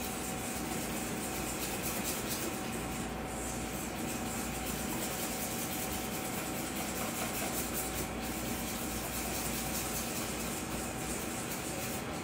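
Steady background hum and hiss with a faint constant tone, unchanging throughout.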